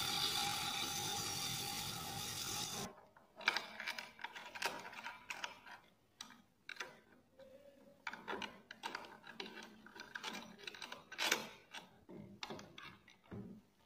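A motor-driven disc spins with a small hand tool pressed against its face, making a steady whirring hiss that cuts off abruptly about three seconds in. Irregular clicks and knocks follow as the router's sliding carriage and clamp are handled.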